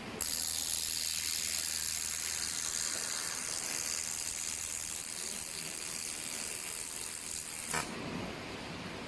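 Handheld fiber laser welding gun firing: a steady high hiss with a low hum underneath, starting just after the beginning and cutting off with a click about eight seconds in.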